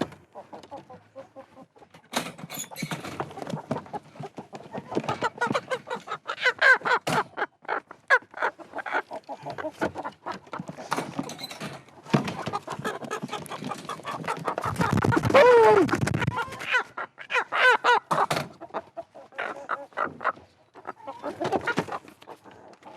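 Chickens clucking and squawking as they are grabbed by hand and put into a crate, with many short knocks and scuffles throughout. One loud, drawn-out squawk falls in pitch a little past halfway.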